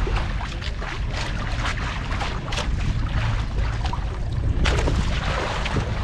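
Fishing boat's engine running steadily at sea, with wind on the microphone and repeated short splashes or gusts of hiss.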